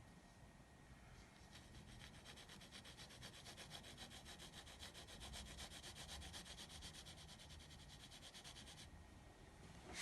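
Faint rapid back-and-forth strokes of a drawing tool shading on paper, several strokes a second, stopping about nine seconds in.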